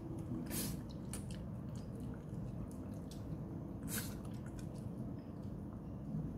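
A dog eating wet food from a steel bowl: moist chewing and lip-smacking, with a few sharp clicks, the loudest about half a second in and about four seconds in.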